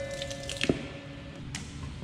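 Wet rubber wash-down hose being worked off its fitting on a hose reel: one short squelch about two-thirds of a second in, then a few light clicks.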